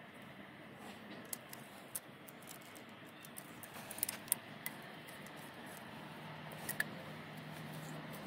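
Small metal clicks and ticks from a hacksaw frame as a blade is fitted and the wing nut turned to tension it, a few sharper clicks about four seconds in and another near seven seconds, over a low steady hiss.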